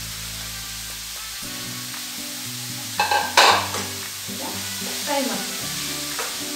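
Grated carrot frying in a steel pan on a gas stove, sizzling steadily while being stirred with a spoon, with two loud, sharp bursts about three seconds in. Soft background music underneath.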